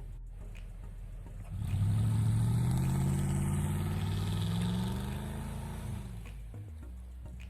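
Audi A8 D2 4.2 quattro's V8 engine idling, then revved once about a second and a half in, held up for about three seconds and let fall back to idle.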